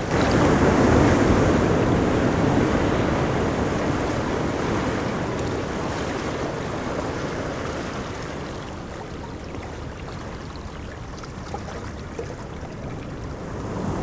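Ocean surf on a beach: a wave breaks and surges loudly about a second in, then washes and slowly recedes, and the next wave builds near the end.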